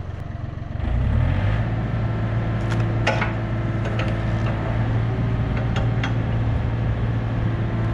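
Compact excavator's diesel engine throttling up about a second in, then running steadily at speed. A few sharp metal clanks come over it.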